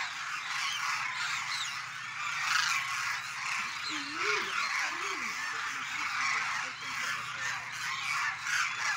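A large flock of demoiselle cranes calling all at once, a dense, unbroken chorus of honking calls from the birds in flight and on the ground.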